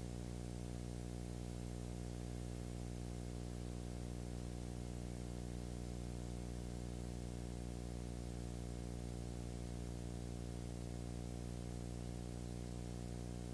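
Steady electrical hum with a stack of overtones under a constant hiss, unchanging throughout. It is the noise floor of a transfer of silent home-movie film; the surf in the picture is not heard.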